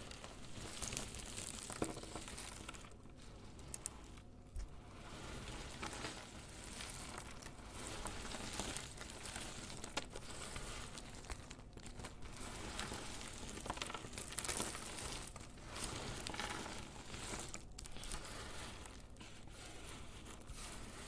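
Dry, crumbly soap cubes crackling and rustling as they are handled and crushed, with a steady run of small crisp snaps.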